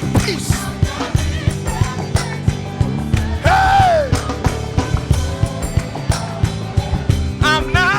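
Live gospel praise band playing with a steady drum beat, bass and keyboard chords, and one short sung phrase that falls away about halfway through.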